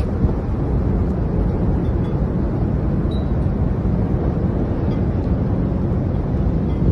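Strong storm wind rumbling and buffeting on the microphone: a loud, steady, deep rush.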